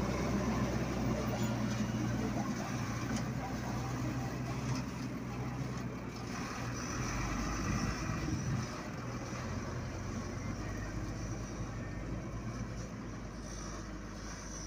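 Diesel engine of a loaded MAN tipper truck running as it drives away, growing gradually fainter.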